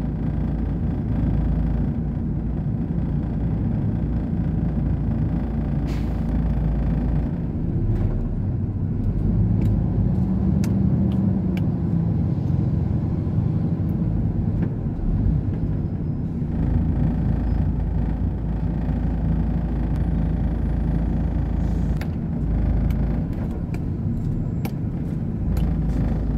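Heavy truck's diesel engine running at low speed in slow, stop-and-go traffic: a steady low rumble heard from inside the cab, with a few light clicks.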